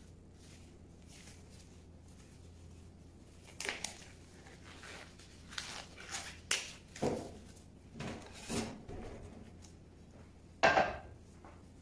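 A jackfruit and a plate being handled and moved on a stainless steel worktop: a quiet start, then a run of short knocks and clunks, and one sharp, loud knock near the end.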